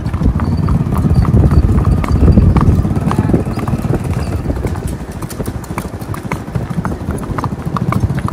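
Hoofbeats of a Kathiyawadi mare ridden at a brisk gait on a wet track: a fast run of clip-clop hits over a steady low rumble.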